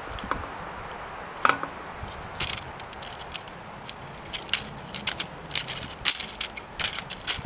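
Pinwheel clicking and rattling as a cat bats at it: a few separate clicks at first, then a quick, irregular run of clatters through the second half.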